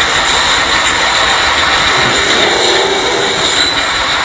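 Steady, loud machinery noise of a hot-forging press and shop running, an even rushing din with faint steady high tones and no distinct hammer blows.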